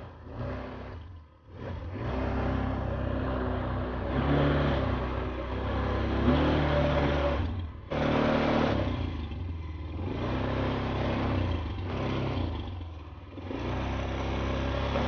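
ATV engine running and revving as it is ridden, its pitch rising and falling with the throttle. The sound drops out briefly near the start and again about halfway through.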